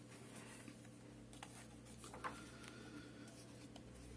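Near silence: quiet room tone with a faint steady hum and a few soft clicks and rustles.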